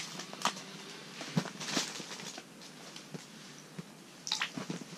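Scattered small clicks, taps and brief rustles of people handling gear in a small tent on the ice. A few louder ones come about a second and a half in and again near the end.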